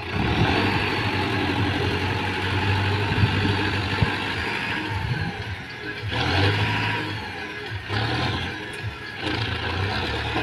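Tractor diesel engine running under load while working a front loader, its speed rising and falling several times as the loader arm lifts.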